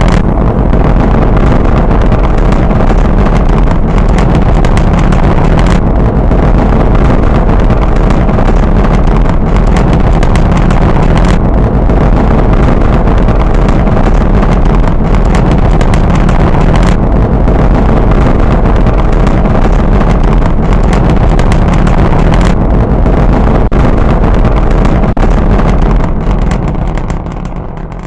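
Rocket launch: a loud, continuous rumble from the rocket's engines that fades away over the last couple of seconds.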